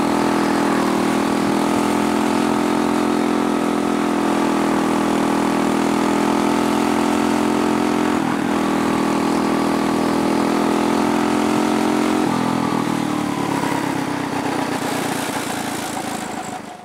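Quarter midget's Briggs & Stratton Animal single-cylinder engine running at a steady high speed, heard close from the onboard camera, with a brief wobble about halfway. Over the last few seconds the engine drops in pitch and eases off.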